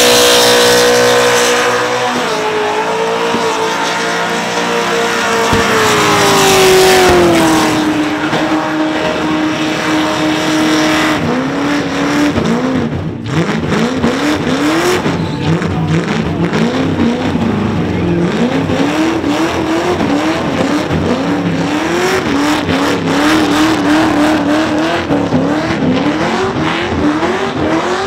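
Holden VR Commodore ute's engine held at high revs during a burnout, over the hiss of spinning tyres. The revs drop about eight seconds in. From about eleven seconds it is revved in quick repeated rises, roughly one a second.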